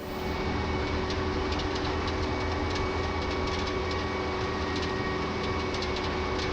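Vermeer ZR5 1200 self-propelled baler running, its 200-horsepower engine giving a steady drone with a faint whine over it, mixed with a rapid irregular clatter of ticks from the machine at work.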